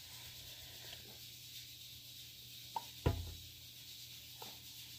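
Quiet handling sounds of plastic baby food cups and a spoon: a sharp click and then a dull thump about three seconds in, and a faint tap near the end, over a low room hum.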